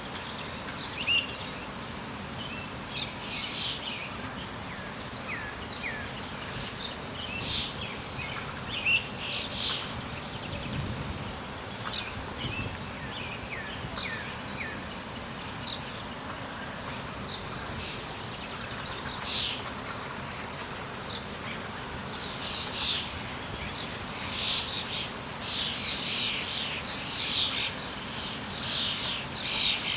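Songbirds chirping and calling in short, quick notes over a steady background hiss, the chirps coming thicker in the last ten seconds or so.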